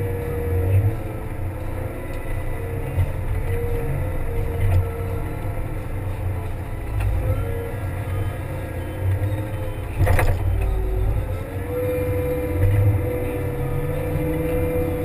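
Kramer 380 compact wheel loader's diesel engine running under load while plowing snow, with a whining tone that dips and rises as the machine works. There is one sharp knock about ten seconds in.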